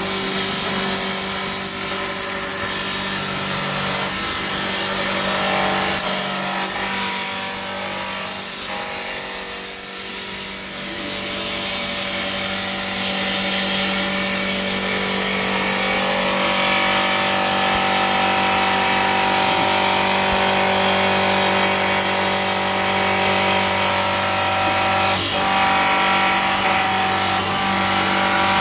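CNC wood turning lathe with rotary carving spindle running while it turns and carves a wooden baluster: steady motor and spindle whine over the noise of the cutting. A higher, brighter whine comes in about halfway through.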